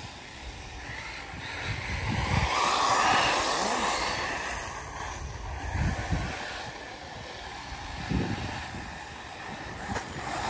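Arrma Typhon 6S brushless electric RC buggies running on a dirt track, a rushing noise of motors and tyres that rises and falls as they go round. Wind gusts on the microphone.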